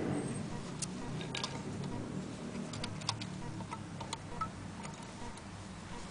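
Singer 201K sewing machine being handled: a scatter of light, irregular metallic clicks as the fabric is set under the presser foot, over a low steady hum.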